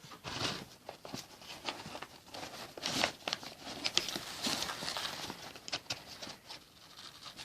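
Handling noise from a handheld vacuum's paper dust bag and plastic housing: irregular rustling and light taps and clicks.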